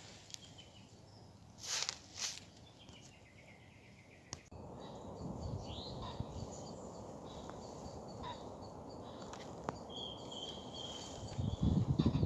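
Outdoor ambience of small birds chirping and calling, with a short whistled note near the end, over a steady low rushing background that comes in abruptly about four seconds in. Two brief rustling swishes come in the quiet first part, and a louder rushing noise builds at the very end.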